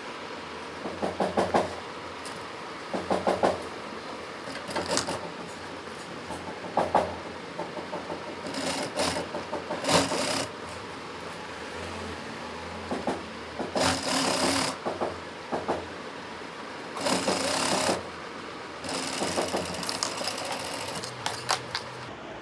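Industrial sewing machine stitching a zipper onto a leather jacket panel in short runs, starting and stopping every second or two as the work is fed and repositioned.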